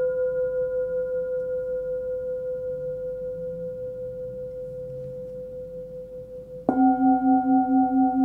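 Forged Tibetan singing bowl tuned to B, about 500 Hz, ringing after being struck, slowly dying away with a gentle pulsing waver. Near the end, a lower-pitched bowl of the set is struck with a wooden mallet and rings out at about 260 Hz, the C bowl.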